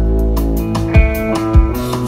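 Live pop-rock band playing, with electric guitar over a drum kit. Two hard kick-drum hits land about a second in and again half a second later.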